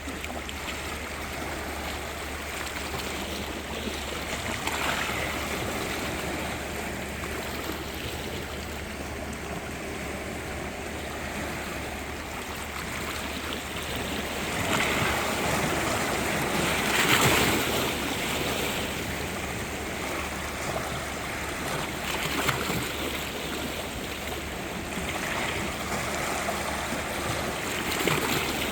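Sea waves washing in and breaking, swelling every few seconds, loudest about halfway through.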